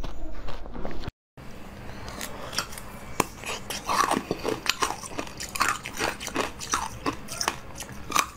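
Close-miked mouth sounds on a frozen ice pop for about a second. After a brief silence, ice cubes with basil seeds frozen in them are bitten and chewed, with many crisp, irregular crunches and cracks as the ice breaks.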